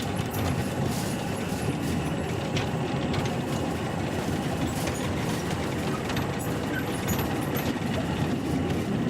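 Small park trolley train running along its narrow track: a steady rumble of wheels on rail with faint clicks.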